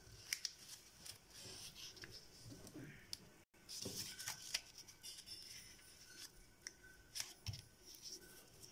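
Sheet of paper being folded and creased by hand, with faint rustles and scattered small crinkling clicks.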